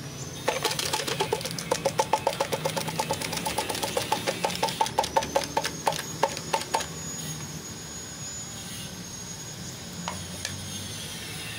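A metal tin of wet cat food is held upside down and knocked repeatedly to shake the food out: rapid ringing metallic taps, about four a second, which stop about seven seconds in.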